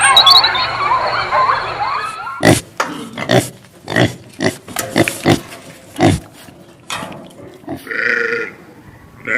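Animal calls: dense overlapping high chirps for about the first two seconds, then a run of short, irregular grunts, and one short bleat-like call about eight seconds in.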